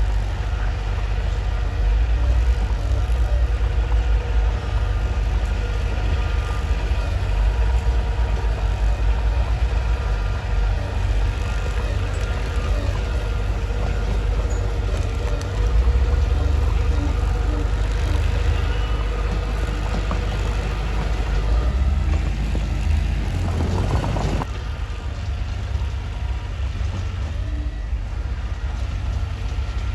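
Mitsubishi bulldozer's diesel engine running steadily as it works, its level swelling and easing a little, with a short burst of noise about three-quarters of the way through.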